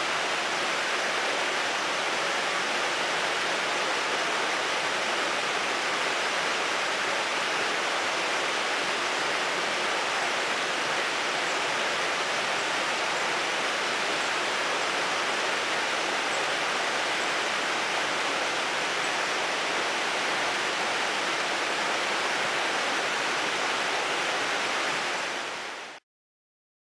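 Shallow river running fast over rocks: a steady, even rush of water that fades quickly and cuts off to silence near the end.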